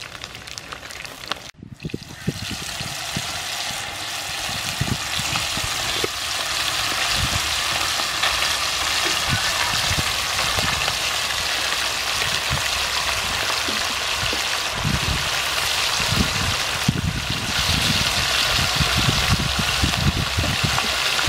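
Chicken wings deep-frying in hot soybean oil, a steady sizzle with irregular crackles and pops. It drops out briefly about a second and a half in, then carries on louder.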